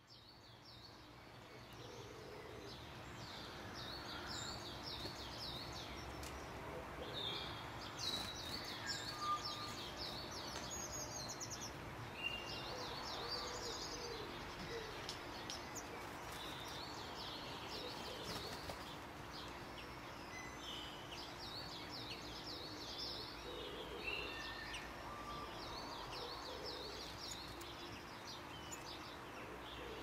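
Wild garden birds singing and chirping, with short repeated high phrases following one another throughout over a faint steady low hum. The sound fades in over the first couple of seconds.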